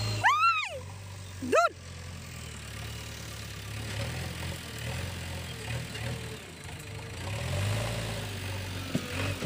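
Two short high-pitched cries in the first two seconds, the first arching up and down, over a low steady engine-like hum as of a vehicle idling.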